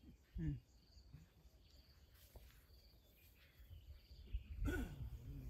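African elephant scuffing its foot through dry dirt, with a brief sudden scrape near the end. High insect chirps repeat about once a second underneath.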